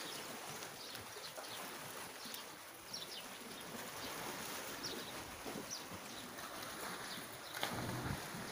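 Small birds chirping: short, high, slightly falling calls about once a second over a steady rushing background noise, with a low thump a little before the end.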